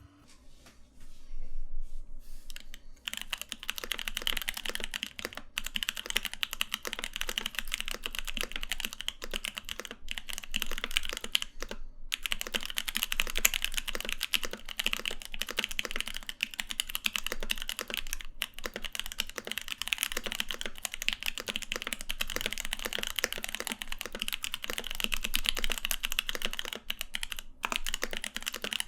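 Typing on a mechanical keyboard fitted with SP Star tactile switches, which have nylon housings and POM stems: a fast, continuous run of keystroke clicks that starts about a second in and fills out about three seconds in, with a few brief breaks.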